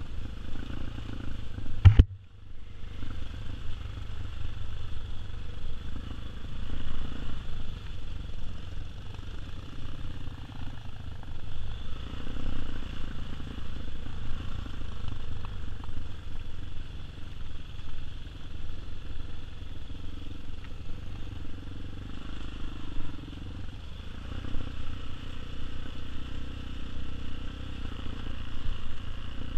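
Tao Tao TBR7 dirt bike's single-cylinder engine running steadily at low trail speed, with clatter from the bike over rough ground. A sharp knock about two seconds in.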